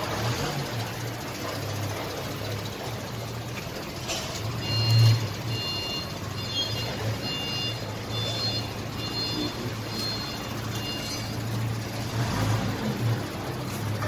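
A steady low hum under a repeating electronic beep: about nine short beeps, roughly one and a half a second, from about four and a half seconds in to about eleven seconds.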